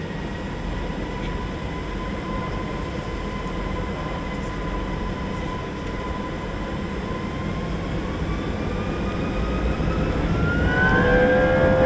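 Airbus A320 jet engines heard inside the cabin: a steady rumble with a thin whine. About ten seconds in, the whine rises in pitch and the sound grows louder as the engines spool up toward takeoff power.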